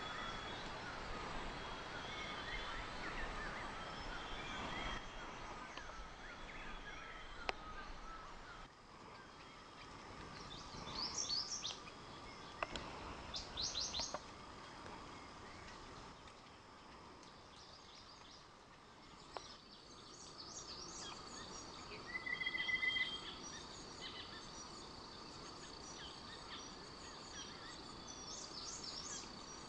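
Forest ambience with several birds calling: quick clusters of high chirps, a short trill, over a soft steady hiss, with a thin steady high tone coming in about two-thirds of the way through.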